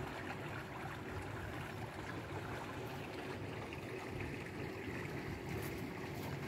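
Steady rushing of wind buffeting the microphone outdoors, heaviest in the low rumble, with a faint steady hum underneath.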